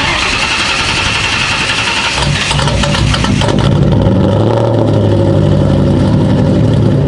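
Ford Mustang GT's 4.6-litre two-valve V8 just after a start, heard at the exhaust: it runs at a fast, rough high idle, then drops and settles into a steady idle about three seconds in. It is a morning cold start, and the owner says she wasn't very happy.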